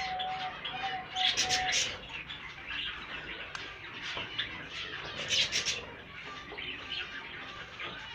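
A flock of caged pet birds chirping and twittering, with busier clusters of chirps about a second in and again around five seconds.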